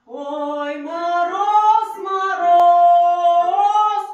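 A woman singing sustained, sliding notes with no words, over a lower held line. A single sharp click cuts in about halfway.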